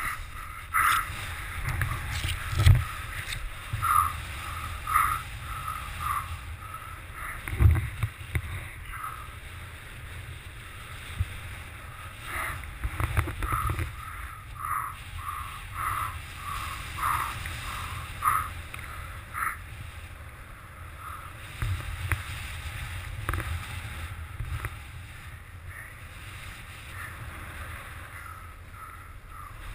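Wind rushing over a helmet-mounted GoPro camera in wingsuit flight: a steady low rumble with short louder surges, often about a second apart.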